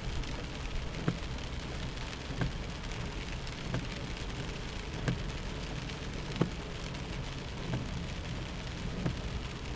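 Heavy rain drumming on a car as it drives through deep floodwater, heard from inside the car, with a low steady rumble underneath. A short knock repeats evenly, about once every 1.3 seconds.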